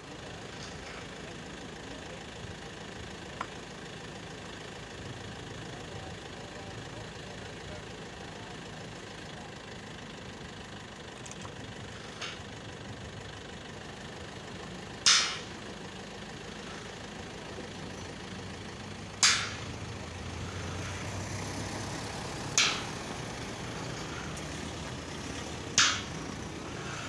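Steady outdoor background with the low hum of a vehicle engine idling. Four short, sharp bursts cut in during the second half, each a few seconds apart and louder than anything else.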